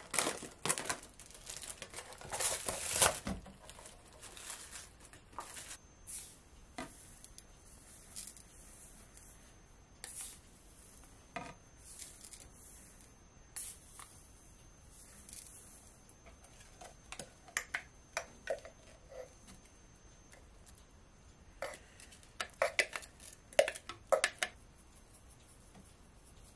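Food-prep handling sounds: a plastic meat tray rustling and crackling for the first few seconds, then scattered light clicks and taps of a wooden spoon, a glass jar and a metal spice shaker over a plastic mixing bowl, with quick runs of sharp clicks later on.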